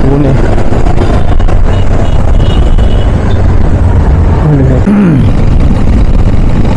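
Wind buffeting a helmet-mounted external microphone under a foam sponge and furry dead-cat windscreen while riding a motorcycle, a loud, steady rumble over the engine and traffic noise. A brief gliding tone sounds about five seconds in.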